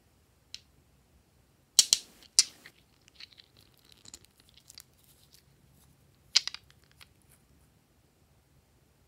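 Sharp clicks and snaps of cosmetic packaging being handled: a lipstick tube worked by hand and a nail polish bottle opened. There is a cluster of loud clicks about two seconds in, soft scratchy handling after, and another loud click about six and a half seconds in.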